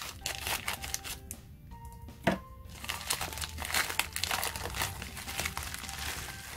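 Plastic mailing envelope crinkling and rustling as it is handled and opened, the crackle getting busier about halfway through as a packaged item is slid out. Soft background music with held notes underneath in the first couple of seconds.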